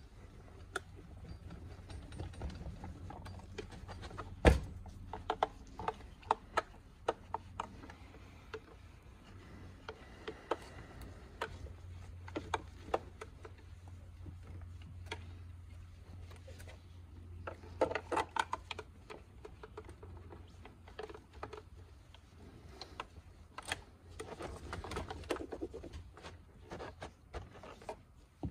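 Microfiber cloth rubbing over a Hyundai Palisade side mirror's plastic housing as it is wiped down, with scattered light clicks and knocks as the mirror is turned and handled, one sharper knock about four and a half seconds in. A low steady hum runs underneath.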